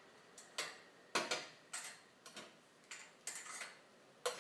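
An irregular run of about ten short, sharp clicks and clacks as hands handle the plastic reel holders and film spindles of a cup sealing machine.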